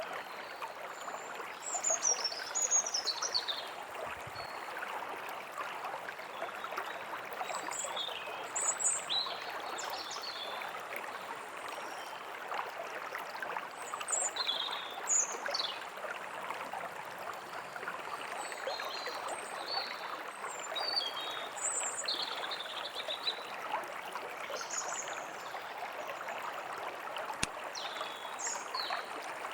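A forest stream running steadily, with small birds chirping and giving quick falling notes on and off above it.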